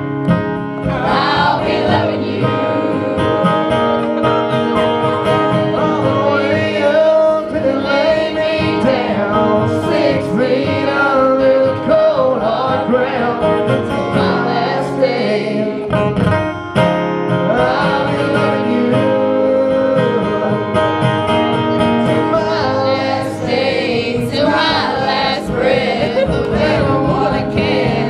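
A country song performed live: two men singing together to a strummed acoustic guitar.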